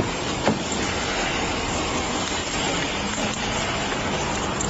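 Steady road and vehicle noise, with a sharp click at the start and another about half a second in.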